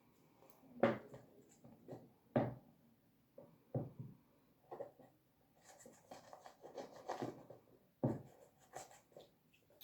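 Glue stick being rubbed over paper, with paper rustling and a few short light knocks on the tabletop.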